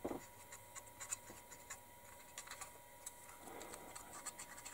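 Faint small clicks and scratches of a fine paintbrush dabbing rust weathering onto the plastic leaf springs and axles of a 1/72 model vehicle, with a brief rustle of the kit being handled at the start and another soft one about three and a half seconds in.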